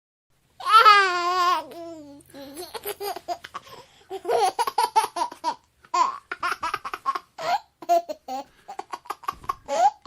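A baby laughing: a loud, warbling squeal about half a second in, followed by a long run of short laughing bursts.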